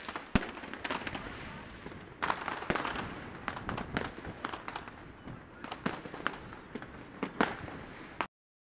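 New Year fireworks and firecrackers going off all around in irregular sharp bangs and cracks, several a second at times, over the steady hubbub of a crowded street. The sound cuts off suddenly near the end.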